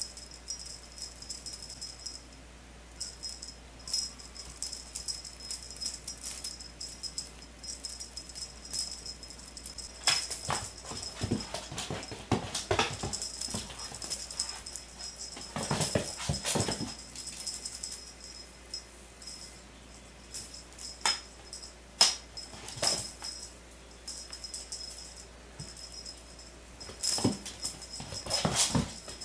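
A tabby cat chasing and pouncing on a feather wand toy over a hardwood floor: irregular thumps and scuffles of paws and the toy hitting the boards, busiest in the middle.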